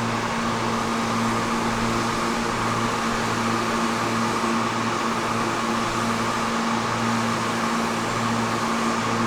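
Steady industrial machinery drone from a nearby manufacturing plant: a constant hum with a held tone and a low throb that pulses a little more than once a second.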